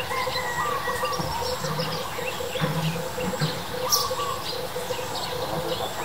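Birds chirping and calling: a busy mix of short chirps and brief whistled notes, with a sharp click about four seconds in.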